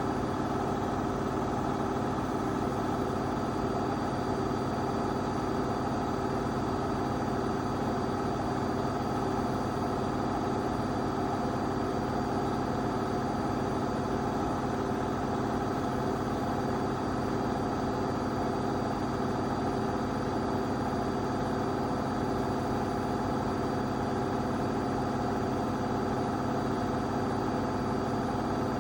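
AEG 8000 washing machine running at a steady drum speed, its motor giving a constant hum with several steady tones.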